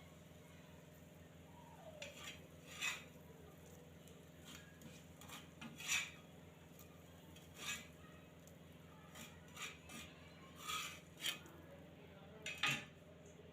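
Kitchen utensils clinking and scraping against dishes in short, irregular knocks, about a dozen in all, the loudest around a quarter and halfway through, over a faint steady hum.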